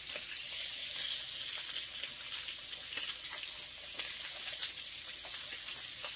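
Fish pieces shallow-frying in hot oil in a frying pan: a steady sizzle dotted with many small crackles and pops as the pieces are turned over.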